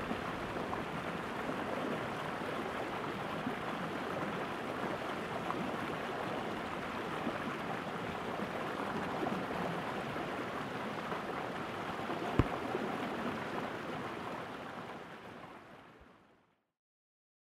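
Mountain creek running over rocks: a steady rush of water. A single sharp knock about twelve seconds in, and the sound fades out near the end.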